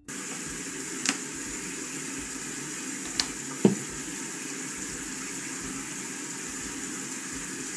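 Bathroom sink tap running steadily, with a few light knocks about one and three and a half seconds in.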